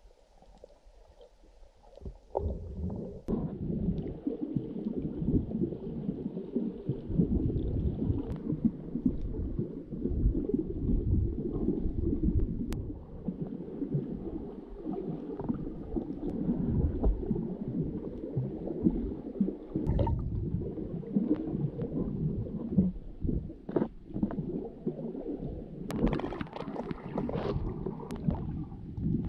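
Muffled underwater water noise picked up by a submerged camera: a dense low rumbling and gurgling of water moving past the housing as the swimmer strokes along, starting about two seconds in. Near the end a brighter, hissing splash comes in as the camera nears the surface.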